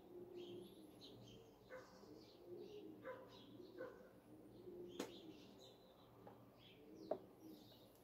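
Faint dawn birdsong: small birds chirping on and off, with a low wavering call underneath. Two sharp clicks stand out, about five and seven seconds in.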